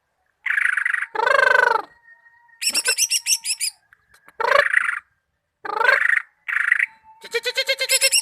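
Greater green leafbird (cucak ijo) singing: a loud, varied song in short phrases of trills, chattering notes and sliding whistles, separated by brief pauses.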